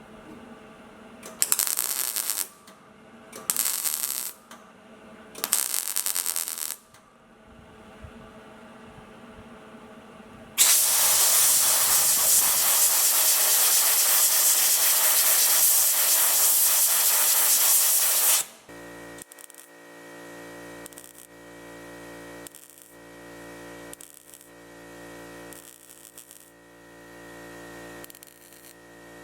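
Three short bursts of loud hissing, then one long steady hiss of about eight seconds that cuts off suddenly. After it, background music with a slow, even pulse.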